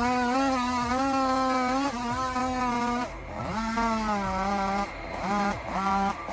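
Chainsaw engine running hard, its pitch wavering as it cuts. About halfway through it breaks into short repeated revs.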